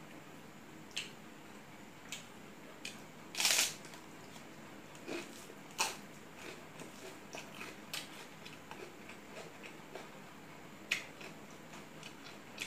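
Close eating sounds of a person eating rice and egg curry by hand: scattered wet clicks and smacks of chewing and of fingers working the rice. There is one louder, longer hissing sound about three and a half seconds in.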